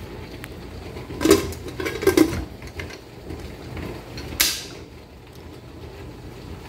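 A pressure cooker's metal lid being fitted and closed: clattering knocks about a second and two seconds in, then a short sharp scrape a little past the middle.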